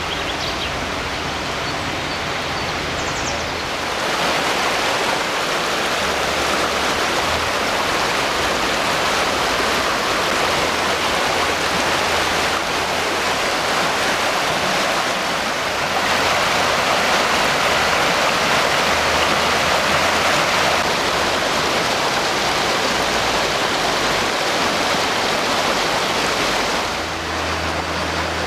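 Shallow creek water rushing and splashing over rocks, a steady rush that steps up in level about four seconds in and again about midway, easing slightly near the end.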